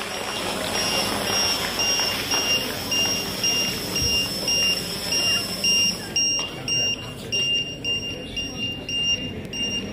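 A large crowd in a hall cheering and chattering, its noise thinning about six seconds in. Over it a high electronic beep repeats about three times a second.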